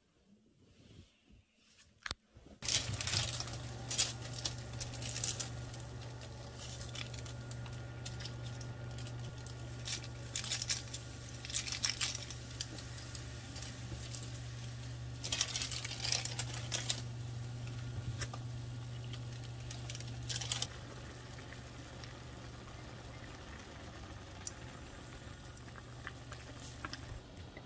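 A saucepan of ramyeon broth boiling on a glass-top stove: crackling and bubbling over a steady low hum, starting a couple of seconds in after near quiet. The hum drops a little about two-thirds of the way through.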